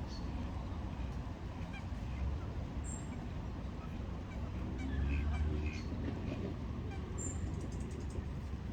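Ducks quacking in scattered short calls, the clearest cluster about five seconds in, over a steady low background rumble.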